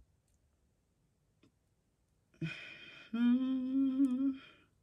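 A woman humming one long, steady "hmm" of concentration, lasting just over a second, about halfway through, while she tries to make out a small inscription.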